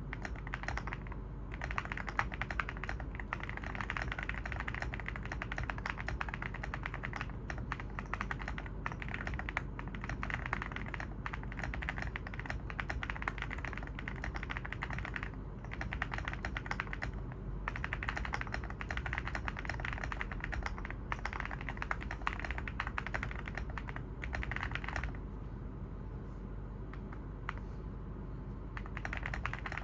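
Typing on an Evoworks EVO80 mechanical keyboard with a polypropylene plate and Oat linear switches: a fast, continuous stream of keystroke clacks that thins out for a few seconds near the end.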